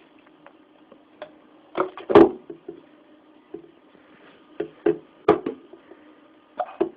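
A young child hiccupping: several short, sharp hiccups at uneven intervals, the loudest about two seconds in.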